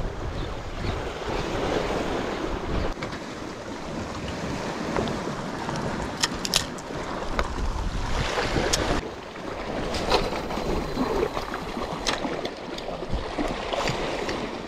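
Waves washing against a rocky shore, with wind on the microphone and a few sharp clicks scattered through.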